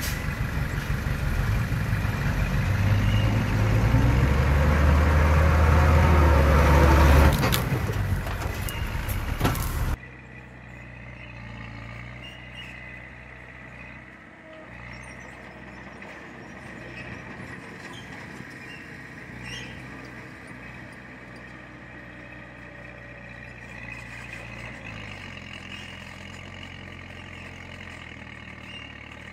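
Heavy diesel engine running hard and loud, strongest a few seconds in. About ten seconds in it drops abruptly to a much quieter, steady low engine drone.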